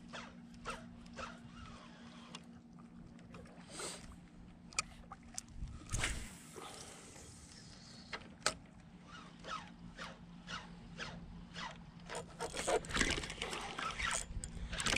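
Spinning reel being cranked to retrieve a lure, with irregular clicks and scraping, and one louder rush about six seconds in.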